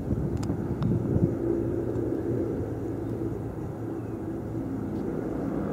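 Steady low drone of a distant engine, with a couple of faint clicks in the first second.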